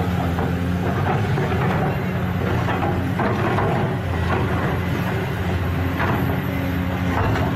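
Heavy diesel engine of an excavator running steadily, with scattered knocks and clanks from the machine at work.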